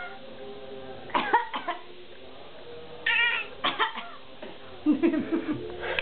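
An elderly woman's short, deliberate coughs and a baby's high-pitched, cough-like noises copying them, in several short bursts.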